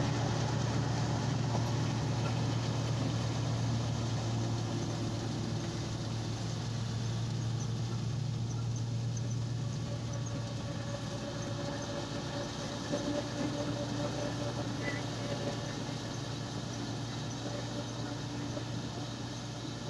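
Rusi 510 tractor's diesel engine running steadily under load as it drives a PTO straw chopper (tractor-mounted straw reaper), a continuous low drone that grows slightly fainter toward the end.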